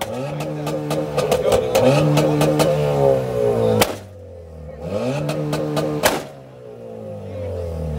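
Modified Ford Fiesta revved in repeated blips while standing, the engine rising in pitch and falling back. Rapid crackles and pops come from the exhaust as the revs drop, with two loud bangs about four and six seconds in.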